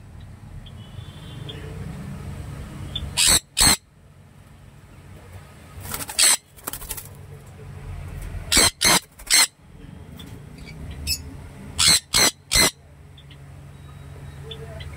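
Sun conures giving short, harsh, piercing screeches, about nine in all, in clusters of two or three a few seconds apart.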